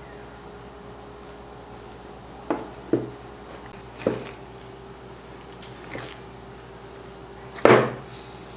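Hands kneading soft wheat-flour and milk dough in a glass bowl, pressing and pushing it against the glass: five dull knocks about a second or two apart, the loudest near the end, over a faint steady hum.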